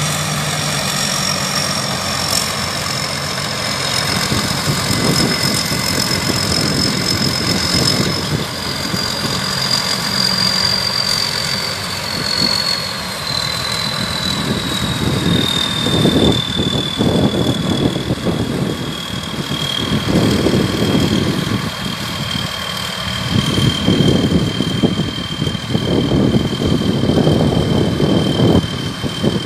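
Combine harvester running, its engine and machinery giving a steady drone with a high whine that slowly falls in pitch over the first half and then holds steady. In the second half, louder swells come and go every second or two.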